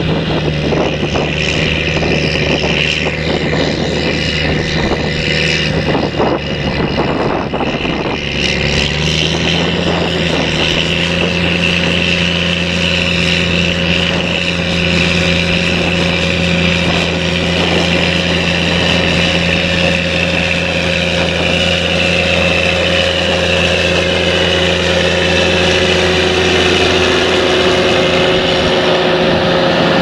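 Challenger MT765B rubber-tracked tractor's diesel engine running steadily under load, pulling a seven-furrow reversible plough, with a steady high whine over the engine note. Knocks and rattles come through in the first several seconds, and the engine note steps up slightly about nine seconds in.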